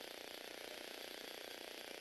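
Small electric motor and plastic gears of a Lego Technic remote-control car running steadily as it drives.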